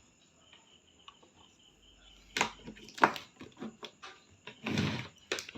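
A few short knocks and clicks, the loudest about three seconds in, and a brief rustle near the end, from handling the TV's circuit board, over a faint steady high-pitched whine.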